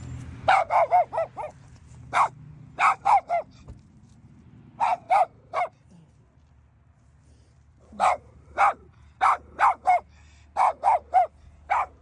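Dog barking in quick runs of short, sharp barks, over twenty in all, with a pause of about two seconds midway.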